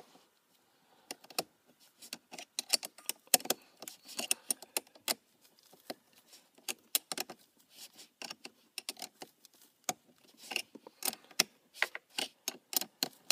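Irregular light metallic clicks and clinks as a battery charger's pigtail ring terminals and the terminal hardware are handled at a car battery's posts.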